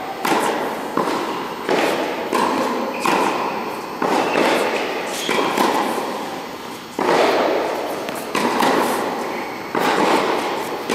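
Tennis balls struck by racquets and bouncing on an indoor hard court during a groundstroke rally: a steady series of sharp pops, one every half-second to second and a half, each ringing on in the hall.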